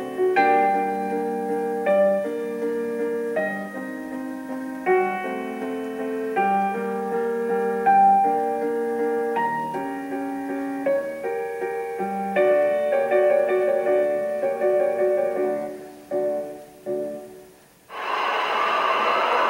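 Background piano music, a melody of single notes and chords, which thins out and stops near the end. In the last second and a half a sudden loud rush of noise cuts in.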